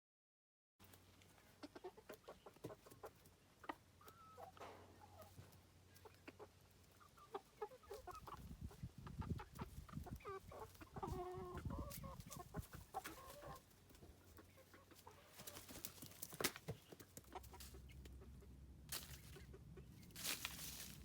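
Young chickens, about twelve weeks old, clucking softly in short calls, with scattered sharp clicks throughout. A low rumble comes in around the middle and again near the end.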